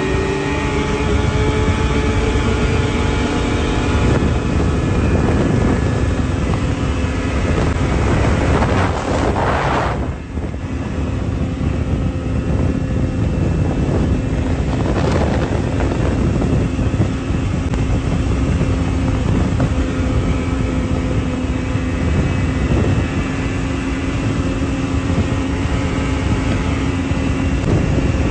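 Two-stroke triple snowmobile engine running hard at speed, with wind noise on the microphone. Its pitch climbs at the start, drops briefly about ten seconds in, then holds steady.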